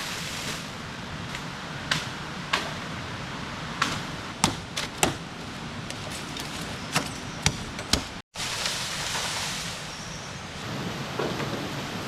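Steady rush of river water with a scattering of sharp knocks and taps, like wood or bamboo being struck, most of them in the middle of the stretch. The sound cuts out for an instant past the middle.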